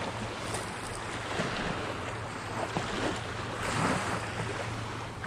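Small waves washing on the shore with wind buffeting the microphone, rising and falling gently, over a steady low hum.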